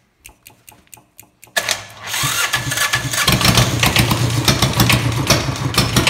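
Electric fuel pump ticking about four or five times a second; then, about a second and a half in, the starter cranks the diesel engine, which has no glow plugs, and it catches and settles into a steady idle with its idle speed turned up.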